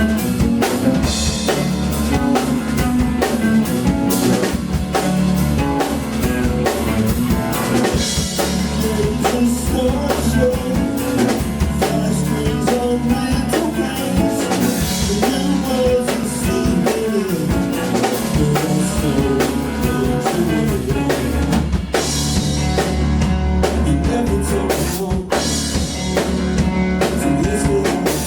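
Live band playing, led by a drum kit with rimshots, with guitar and a steady low bass line.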